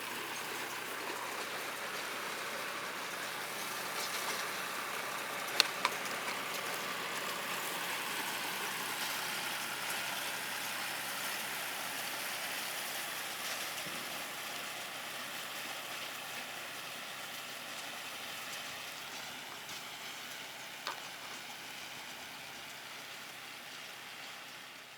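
Tractor and round straw baler working: a steady engine and machinery drone under a broad hiss, with two sharp clicks about six seconds in, fading out near the end.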